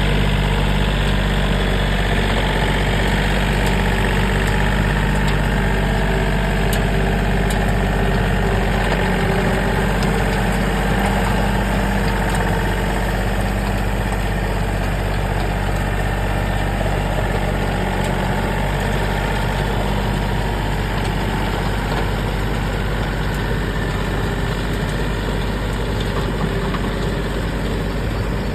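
Yanmar AF330 tractor's diesel engine running steadily while driving a rotary tiller through a flooded rice paddy for rough puddling.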